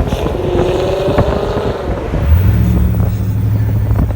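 V8 performance car exhaust: the engine note rises and falls with short crackling pops over the first two seconds, then settles into a steady low drone a little past halfway.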